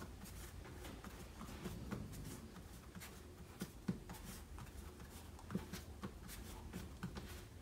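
Faint, scattered soft taps and rustling of hands shaping bagel dough on a countertop, over a low steady hum.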